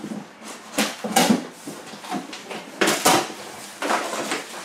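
Cardboard box flaps being pulled open and folded back by hand: a few short scraping rustles of cardboard.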